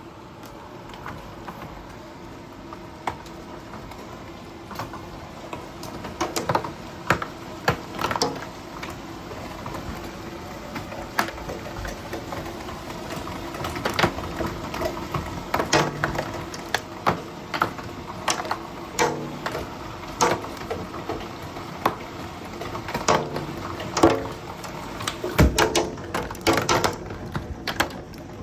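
Hailstones striking hard surfaces in a severe thunderstorm, over a steady hiss of rain: sharp, irregular knocks that come thicker and louder after the first few seconds.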